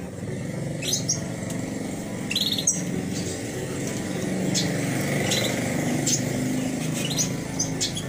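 Small aviary finches chirping: short, high chirps now and then, over a low steady background rumble.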